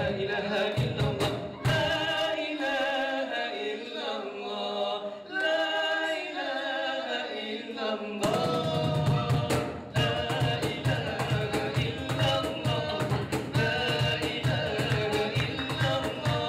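Men singing a devotional nasheed melody with wavering, held notes, accompanied by a cajon. The drum drops out for a few seconds and then comes back in about halfway through with a steady, busy beat.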